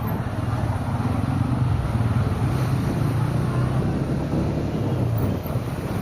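A car driving in traffic: steady engine hum and road noise.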